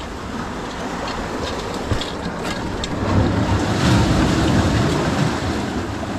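Sea surf washing among rocks, with wind blowing on the microphone; the wash swells louder about three seconds in, then eases.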